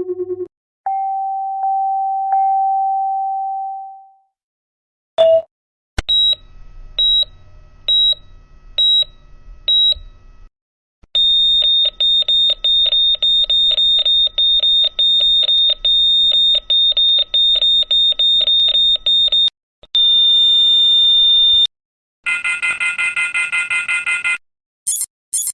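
A string of electronic beep sound effects: a long mid-pitched beep that fades out, five short high beeps about a second apart, a fast run of about three or four high beeps a second, a steady held high tone, then a rapid warbling alarm beep.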